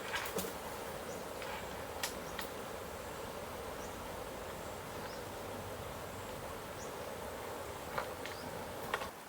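Steady buzzing of insects, with a few sharp clicks scattered through it; the buzz cuts off abruptly near the end.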